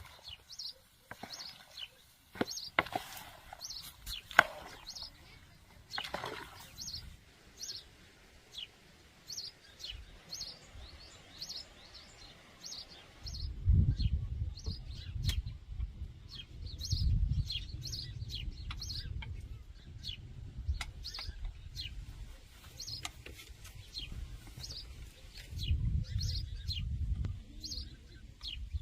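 Small birds chirping over and over. There are a few sharp knocks in the first part, and a low rumble comes in about halfway through.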